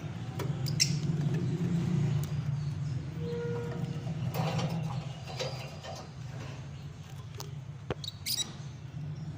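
Lovebirds giving scattered short, high squeaky chirps and clicks, with a steady low hum underneath.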